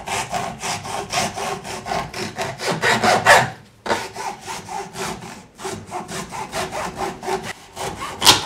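Hacksaw sawing through the pleated paper element of a Mann oil filter, in steady back-and-forth strokes at about two a second. There is a short pause about three and a half seconds in, and a single sharp click near the end.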